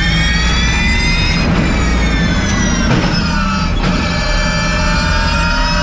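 Electric race car's motor whine at full speed, heard from inside the cockpit, a high multi-toned whine that slowly rises in pitch as the car accelerates. It dips briefly about one and a half, three and four seconds in, then climbs again.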